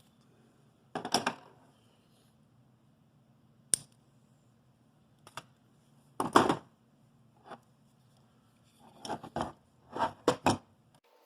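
Plastic parts being handled during assembly of a 3D-printed fan bracket and blower fan: scattered clicks and knocks, with a quick run of four or five near the end.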